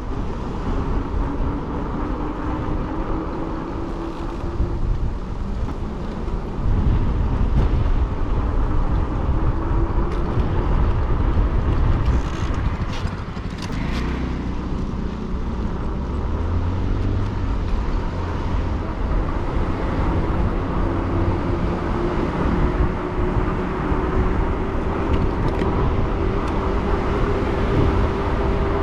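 An e-bike being ridden, its electric motor giving a thin whine that rises slowly as it picks up speed, over a steady low rumble of wind on the microphone.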